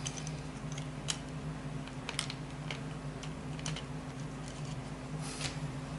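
Light, irregular clicks and clatters of small plastic Roomba parts being set into a dishwasher rack, over a steady low hum.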